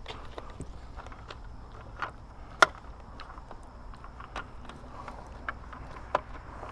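Light, scattered clicks and taps of hand work on the trolling motor's plastic housing during reassembly, with a few sharper knocks, the loudest about two and a half seconds in.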